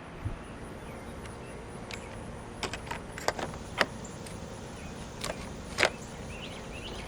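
A handful of sharp plastic clicks and taps from the sunroof wind deflector and its clip hardware being handled, over a steady low hiss. The loudest clicks come about four and six seconds in.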